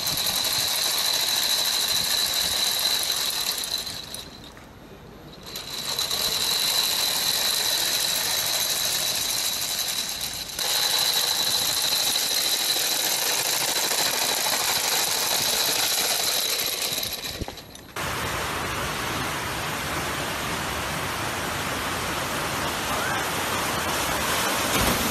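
Motorised skateboard on mecanum wheels rolling over stone paving: a rattling clatter from the wheels' many small rollers with a steady high whine, dropping away briefly a few seconds in. For the last seven seconds it gives way to the even rush of water pouring down a concrete spillway.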